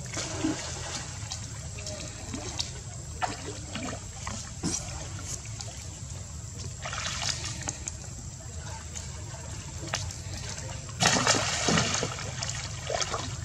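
Water sloshing and splashing as a monkey wades and swims through a pool, with small splashes throughout and a louder burst of splashing about eleven seconds in.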